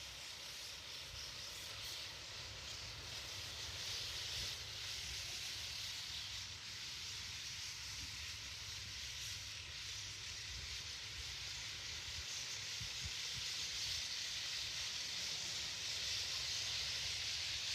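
A large flock of white-cheeked starlings chattering at their roost, so many calls overlapping that they merge into a steady hiss that slowly grows louder.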